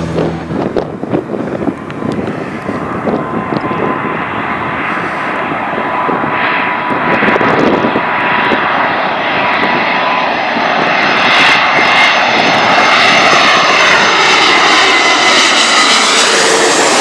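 Turkish Airlines Airbus A330 twin-engine jet on approach with gear down, flying low overhead. The jet engine noise builds steadily as it nears, with a steady whine, and near the end its tones bend in pitch as it passes overhead.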